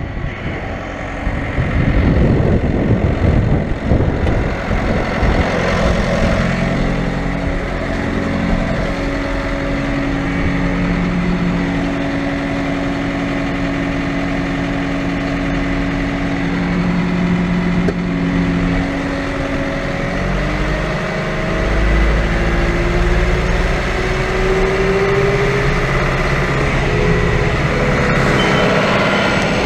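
John Deere 9570 STS combine harvester running steadily while unloading soybeans through its unloading auger. A tone rises slowly in pitch about two-thirds of the way through.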